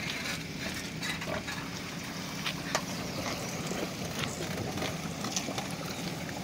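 An engine idling steadily, with light scattered clicks and knocks over it.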